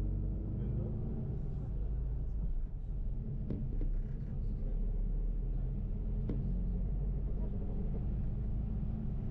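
Bus engine and road noise inside the passenger cabin on the move: a steady low rumble, with two brief knocks, one about three and a half seconds in and another about six seconds in.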